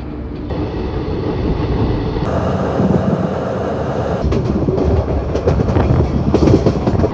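Goa Express passenger train running along the line, heard from on board: a steady rumble and rattle of the coaches, with clusters of sharp wheel clicks over the rails in the second half.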